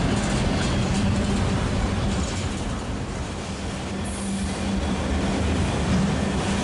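Freight train rolling past, its cars running steadily over the rails with a continuous low rumble and hum.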